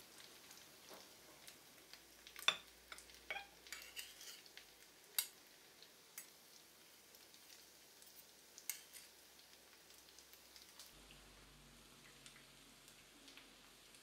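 Metal ladle and fork clinking and tapping against a plate while spaghetti is served: a scatter of light, sharp clicks, the loudest about two and a half seconds in, dying away after about nine seconds.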